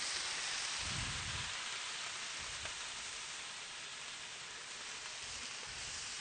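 Soaked thin noodles sizzling in hot oil in a large pan with vegetables, a steady hiss. A few low thumps come through as the noodles are pushed down.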